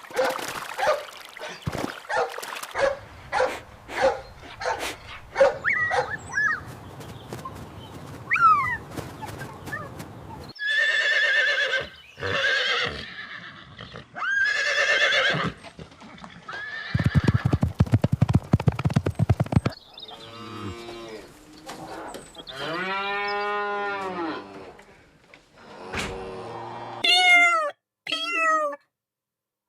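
Several different animal calls, one after another, with short gaps between them: some are short clicks and pulses, some long pitched calls, and one is a low buzzy pulsing.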